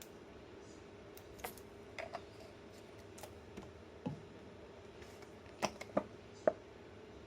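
About seven light, irregular clicks and knocks, the three near the end the loudest, over a steady faint hum.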